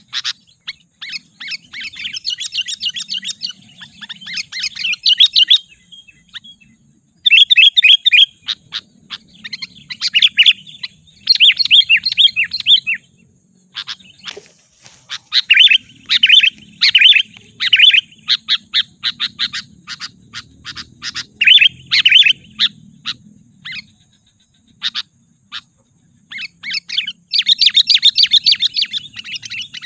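Sooty-headed bulbul calling: runs of rapid, high chirping notes, each run several seconds long, with pauses of a second or two between them.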